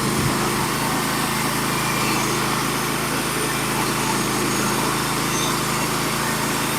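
Small gasoline engine of a manual portable bandsaw mill running steadily under load while the band blade cuts through a 16-inch-wide log, with a steady hiss of cutting over the engine.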